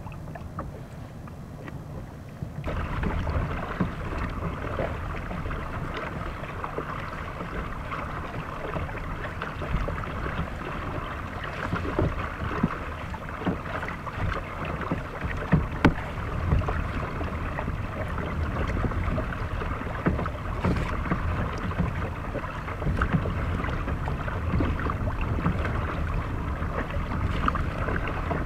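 Kayak paddling on calm water begins a few seconds in: the double-bladed paddle dips and lifts in steady strokes, water splashes and drips off the blades and swishes along the hull, with an occasional sharper splash. A low rumble of wind on the microphone runs underneath.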